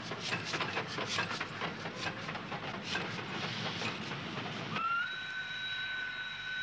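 Steam locomotive passing with a rapid, irregular clatter, then a long steady whistle blast that begins about five seconds in, rising slightly as it opens.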